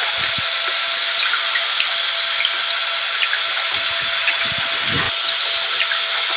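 Steady rushing noise of a vacuum cleaner's motor, with a faint constant whine, blended with falling rain.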